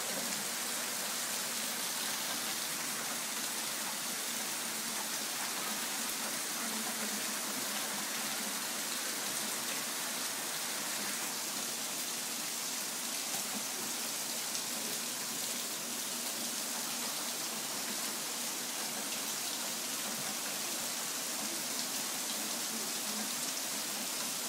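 Steady rain falling in a thunderstorm, an even hiss of drops on leaves and surfaces.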